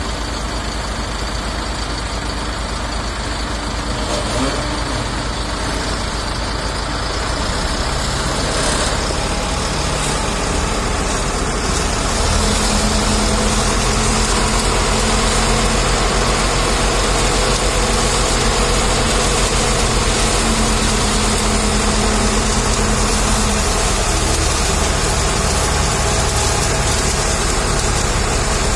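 Diesel engines of a self-loading concrete mixer and a concrete trailer pump running steadily. The sound grows louder about eight seconds in and steps up again about twelve seconds in, where a steady hum joins.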